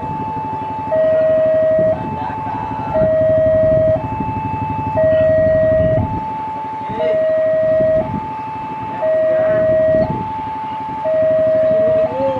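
Level crossing warning alarm sounding a two-tone electronic signal, high then low, switching about once a second, which warns of an approaching train. Beneath it runs the low rumble of the oncoming diesel locomotive.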